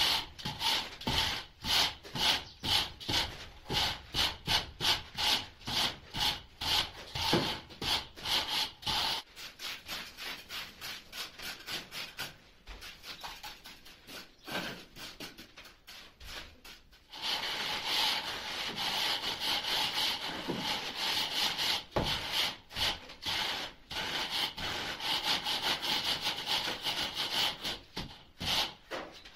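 A metal straightedge dragged back and forth in quick sawing strokes across a damp sand-and-cement mortar bed, a gritty scrape about two strokes a second, screeding the floor level before tiling. The strokes thin out and quieten for several seconds in the middle, then pick up again.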